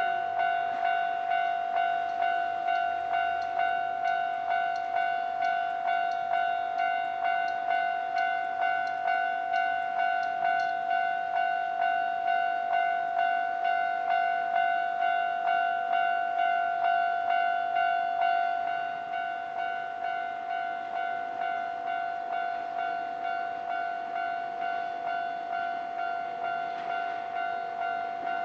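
Japanese railway level-crossing warning bell ringing, a repeated electronic ding at about three strikes every two seconds. About 18 seconds in it drops to a quieter level and keeps ringing.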